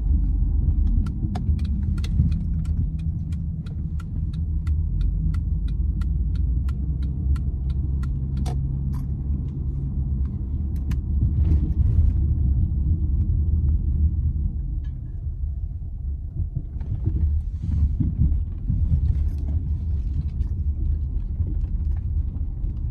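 Car cabin noise while driving: a steady low rumble of engine and tyres. Over it, the turn-signal indicator ticks evenly, about three ticks a second, and stops about nine seconds in.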